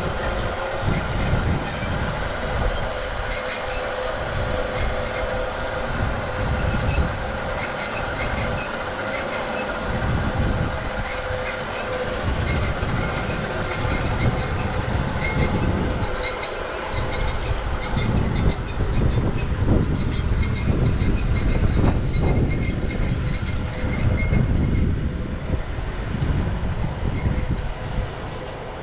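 Machinery running continuously: a low rumble with steady hum tones and rapid, irregular clicking and clatter.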